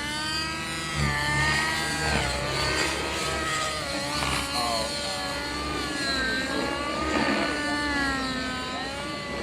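Radio-controlled 3D helicopter in flight, its rotor and motor whine rising and falling in pitch over and over through aerobatic manoeuvres.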